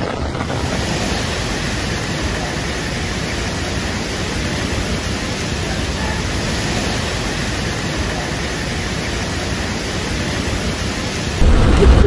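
Heavy rain and rushing floodwater, a steady even noise without a break. About a second before the end it turns louder and deeper.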